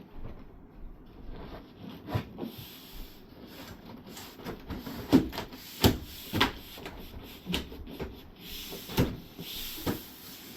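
Corrugated cardboard wardrobe panels being handled and the wardrobe turned over onto its back: irregular knocks and thumps with cardboard rubbing and scraping, the loudest thumps near the middle.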